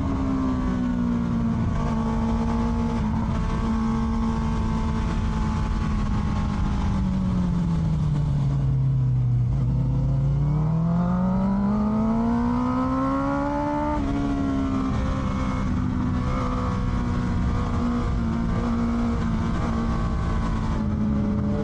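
Honda CBR650R's inline-four engine through an Akrapovic exhaust, ridden under way. The note holds steady, sinks as the throttle is rolled off about eight seconds in, rises as the bike accelerates, and drops sharply at about fourteen seconds with an upshift before settling steady again.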